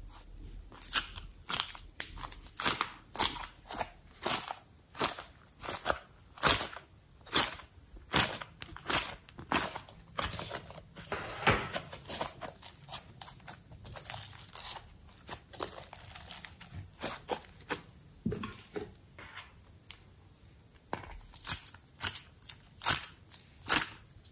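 Glossy slime being pulled out of an ice-cube tray and squeezed in the hand, giving sharp sticky crackles and pops about two a second.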